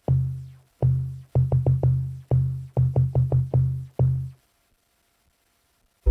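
Dave Smith Instruments Mopho analog synthesizer playing a percussive preset: a rhythmic run of about a dozen short, low bass notes on one pitch, each with a sharp attack and quick decay. The notes stop about four seconds in.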